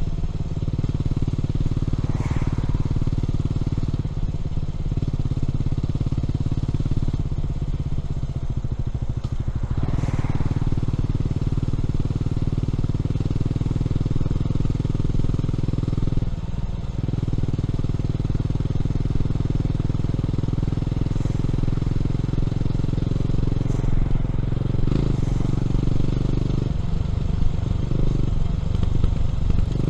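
Honda CB400SS air-cooled single-cylinder engine running through a Yamamoto A-spec exhaust while riding. Its steady note dips briefly a few times.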